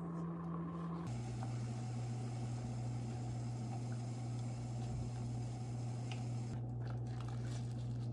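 Steady low electrical hum of a running kitchen appliance, dropping to a lower pitch about a second in. Faint soft crinkling near the end as stacked napa cabbage leaves and beef are pressed down by hand.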